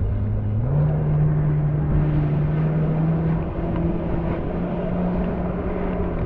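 A watercraft engine running steadily. Its pitch steps up a little under a second in and then holds.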